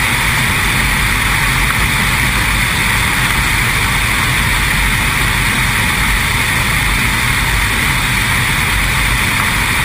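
Weight-shift microlight trike's engine and propeller running steadily in cruise flight, with wind rushing over the microphone.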